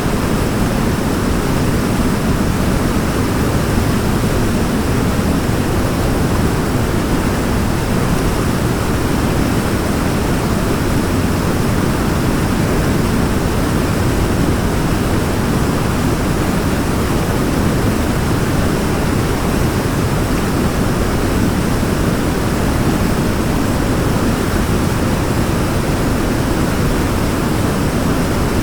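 Waterfall: a steady, even rush of falling water, heaviest in the low range, with no changes.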